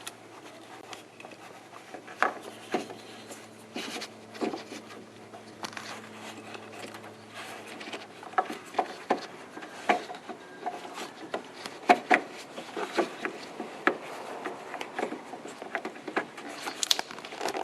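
Hands working a plastic turn-signal bulb socket and its wiring back into the back of a headlight housing: irregular small plastic clicks, knocks and rubbing as the socket is fitted and twisted in. A faint low hum runs under the first half.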